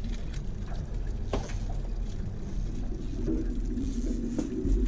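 Outboard motor on a small fishing boat running steadily at trolling speed, with water washing at the stern. A steady hum from the motor becomes clearer about three seconds in.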